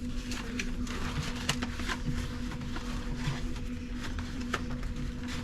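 Paper manuals being shuffled and leafed through, with scattered rustles and light knocks, over a steady low electrical hum.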